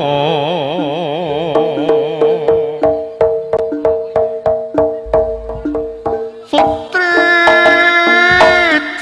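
Live jaranan gamelan music. Even drum strokes come about four a second over steady held tones, under a wavering melody line. A higher, brighter melody enters about seven seconds in.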